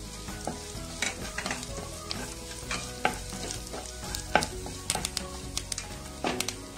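Sliced onions, green chillies and freshly added curry leaves sizzling in hot oil in a non-stick kadai while a wooden spatula stirs them, with scattered sharp clicks and scrapes of the spatula against the pan.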